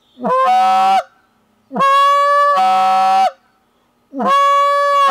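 Goose call (reed call) blown in the train note: three drawn-out, raspy, vibrating honk-moans, each opening with a quick upward swoop as the tongue rises, then held and breaking down to a lower pitch partway through. The middle call is the longest.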